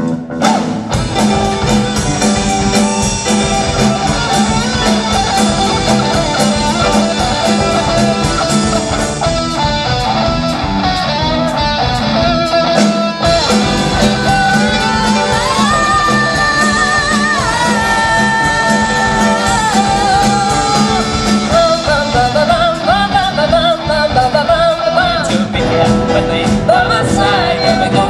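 Live pop-rock band playing: drums keeping a steady beat under bass and guitars, with a singing voice, and a melody holding long notes in the middle.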